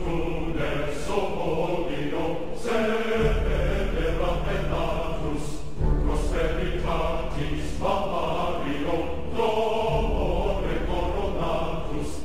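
Background music: choir-like chanting voices over a deep bass note that changes every three to four seconds.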